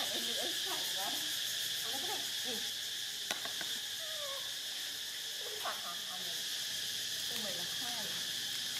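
A steady, high-pitched insect drone, with short calls that slide in pitch now and then.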